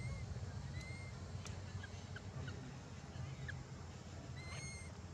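Three short, high-pitched animal calls, each a brief whistle that rises slightly and then holds: one at the start, one just under a second in and one near the end. Faint scattered ticks fall between them, over a steady low hum.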